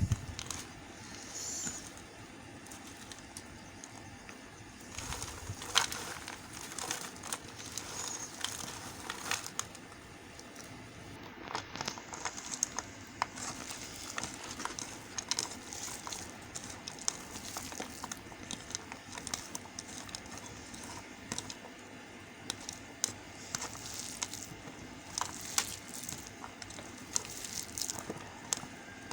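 A knife cutting into a bar of white soap, with irregular crisp crackles and snaps as the blade goes through and pieces break away.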